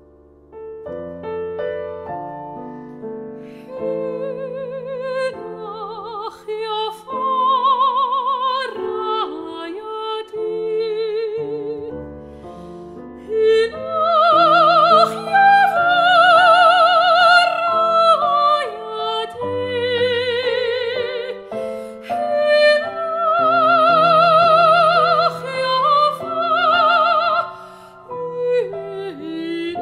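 Soprano singing an art song with vibrato, accompanied by piano; the piano starts about a second in and the voice enters a couple of seconds later.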